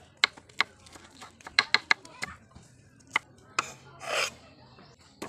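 A cleaver knocking sharply on a wooden chopping block while crushed garlic is worked, about eight knocks spread irregularly, then a longer rasping scrape of the blade across the board a little after four seconds in.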